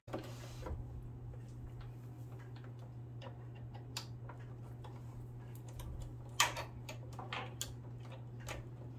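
Scattered small metallic clicks and taps as the presser foot and its holder are worked off a Singer sewing machine, the loudest a little after six seconds in. A steady low hum lies underneath.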